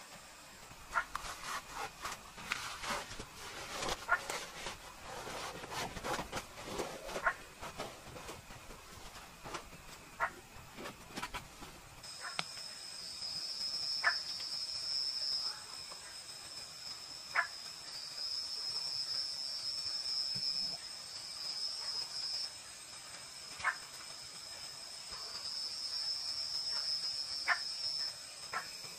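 Tropical forest ambience: for about the first twelve seconds, scattered clicks and short animal calls. Then a steady, shrill chorus of night insects that swells and eases every few seconds, with a sharp chirp every few seconds.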